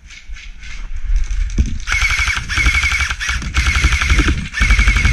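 Airsoft electric rifle (AEG) firing on full auto in four quick bursts, starting about two seconds in. Each burst is a fast mechanical rattle of shots with a steady whine running under it.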